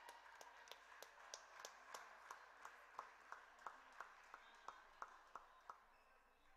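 Faint, evenly spaced clicks of a table tennis ball being struck, about three a second, stopping a little before six seconds in.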